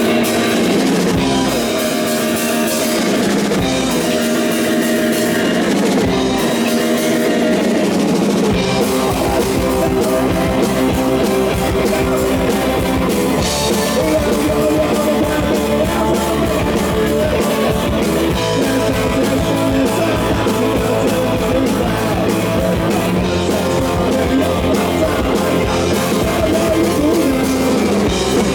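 Rock band playing live: distorted electric guitar over a driving drum kit, loud and steady throughout.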